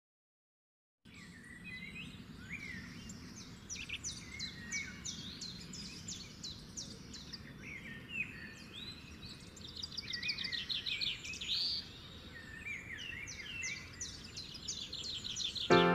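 Several small birds chirping and trilling outdoors, with quick runs of repeated sweeping notes, over a steady low background rumble. It begins about a second in.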